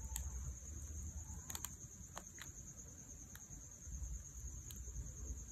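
Faint, scattered light clicks and ticks as a dust-removal sticker is slipped under the lifted edge of a tempered-glass screen protector on a phone, over a steady high-pitched background chirring.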